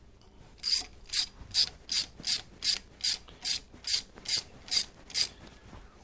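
Hand ratchet wrench clicking through about a dozen quick strokes, two to three a second, as it snugs up the primary cover bolts.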